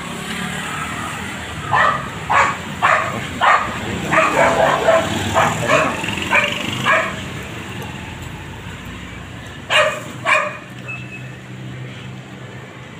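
A dog barking: a run of quick barks about half a second apart, then two more a few seconds later, over a steady hum of street traffic.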